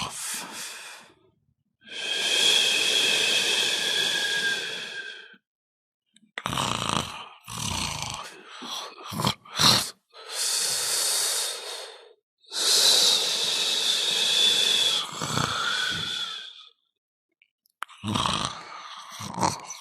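Snoring with a whistling wheeze: three long, noisy breaths of a few seconds each, two of them with a whistle in them, and shorter choppy snorts between them.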